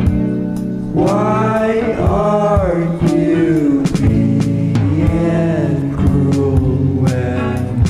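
Background music: a sung melody, entering about a second in, over a backing with a steady beat.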